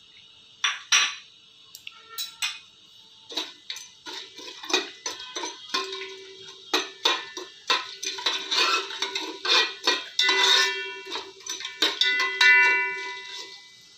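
A steel spoon stirring whole spices in oil in an aluminium pot, clinking and scraping against the metal. Some knocks leave the pot ringing briefly, and the loudest clatter comes near the end.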